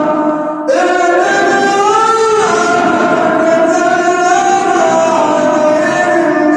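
A male reciter's voice chanting the Quran in melodic style, holding long drawn-out notes that slide in pitch, with a brief break for a new note under a second in.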